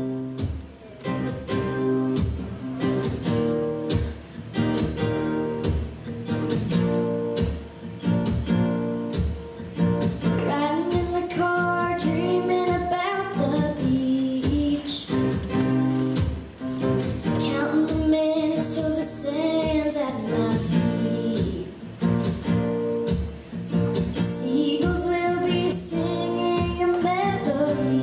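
Background music: a song led by acoustic guitar, with a singing voice that comes in about ten seconds in.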